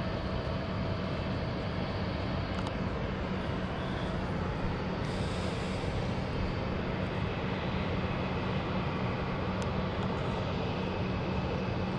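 Boeing 787 jet engines running steadily at idle as the airliner taxis after landing: an even rumble over a low hum.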